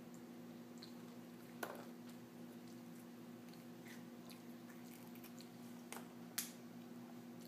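A toddler eating small finger food from a plastic high-chair tray: faint chewing and a few sharp clicks of fingers and food on the tray, over a steady low hum.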